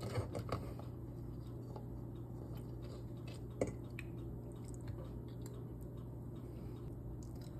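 Metal fork clicking and scraping on a ceramic plate, with chewing, over a steady low hum. There is a sharper clink about halfway through.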